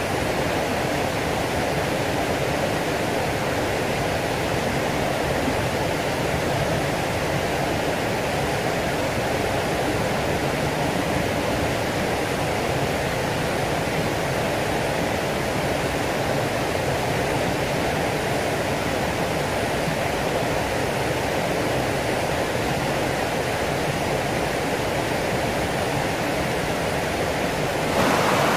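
Steady rushing of water in a fast-flowing irrigation canal, a little louder near the end where a small weir spills into it.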